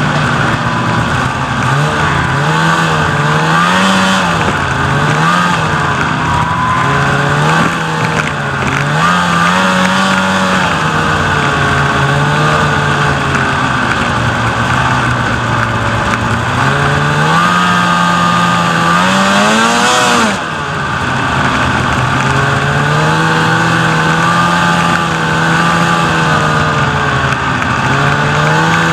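Snowmobile engine running under way, its pitch rising and falling every few seconds as the throttle is worked, with a brief let-off and pick-up about twenty seconds in.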